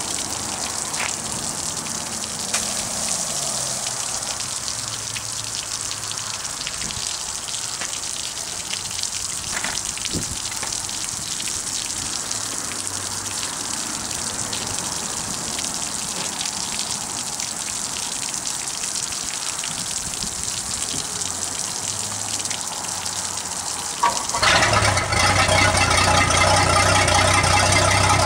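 Water from a garden hose gushing out of a sterndrive lower unit and splashing onto concrete. Near the end the boat's inboard engine starts up suddenly and runs at a steady idle, louder than the water.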